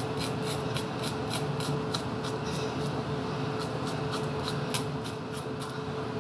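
A knife scraping the scales off a fresh fish in quick short strokes, about four a second, stopping shortly before the end, over a steady low hum.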